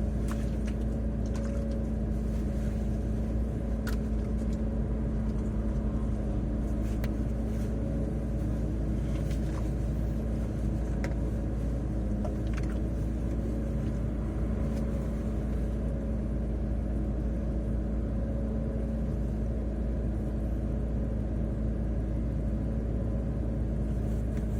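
Steady rumble of a car driving, engine and road noise heard from inside the cabin, with a steady hum and a few faint clicks.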